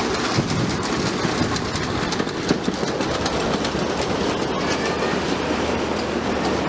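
Miniature park train rolling past at low speed, its cars' small wheels clicking and clattering steadily over the narrow-gauge track.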